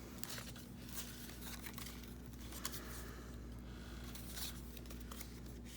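Paper being handled and shuffled on a craft table: light rustles and small taps as pieces of paper and card are moved and set in place, over a faint steady hum.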